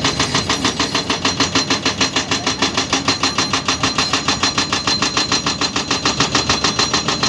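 Diesel engine running with a fast, even beat of about six or seven pulses a second.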